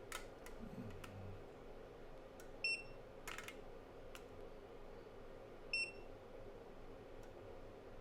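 Two short, high electronic beeps about three seconds apart, with a few faint clicks between them.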